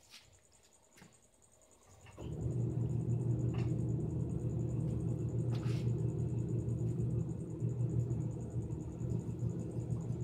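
A steady low mechanical hum, like a running motor or engine, that comes in about two seconds in and holds level, after a few faint clicks.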